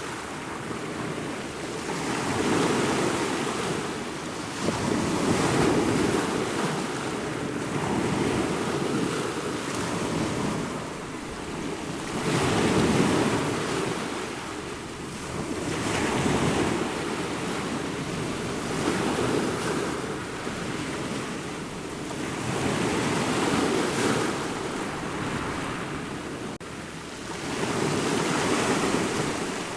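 Ocean waves breaking and washing in, the surf swelling and ebbing about every three to four seconds.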